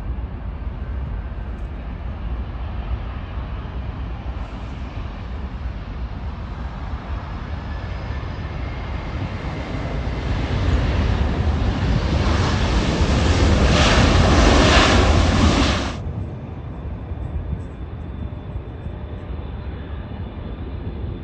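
Jet airliner engines running, the noise building over several seconds to a loud peak and then cutting off suddenly about three-quarters of the way through, leaving a lower steady jet rumble.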